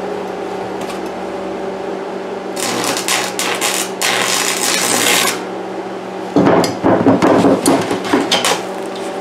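Stick (arc) welding steel tube: the electrode's arc crackles and hisses for about three seconds, a third of the way in, over a steady electrical hum. After a short pause there is a louder, rough, irregular rattling for about two seconds near the end.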